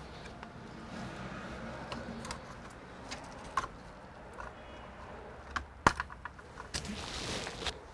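Scattered light clicks and taps from hands handling small computer parts and tools, with one sharper click about six seconds in and a short rustle near the end.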